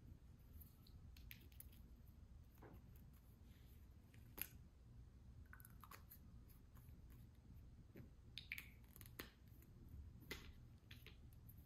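Near silence with faint clicks and rustles of hands handling a small plastic cosmetic tube and its cap, one sharper click about four seconds in and a few more near the end.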